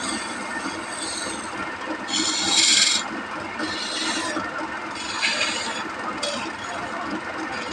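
Woodworking machinery running, with repeated rasping bursts of wood being worked over a steady machine noise. The loudest burst comes about two to three seconds in.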